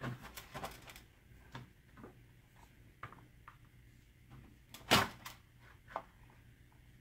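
Light clicks and taps of hands, wire leads and a soldering iron being handled on a small circuit board during soldering, with one louder sharp knock about five seconds in.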